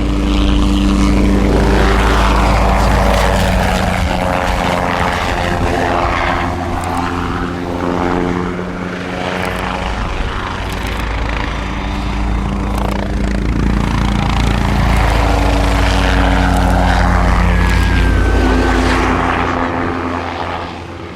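Agusta Caweel CW-86 aircraft sound effect: an engine and propeller drone running steadily, its tones stepping up and down in pitch every few seconds, dropping in level near the end.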